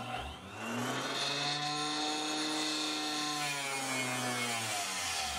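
Harbor Freight 4-inch Mighty-Mite mini table saw's small motor and blade starting up. The whine climbs in pitch over the first second, runs steadily, then sags in pitch near the end as it slows. The owner finds the saw too underpowered to cut FR4 circuit board.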